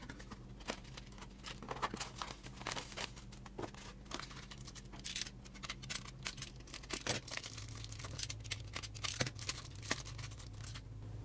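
Plastic bubble-wrap bags crinkling and rustling in the hands, with irregular crackles as a bag is slit open with a utility knife.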